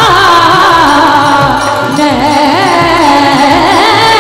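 Devotional bhajan music: a melody line that bends up and down in pitch over a steady drum beat.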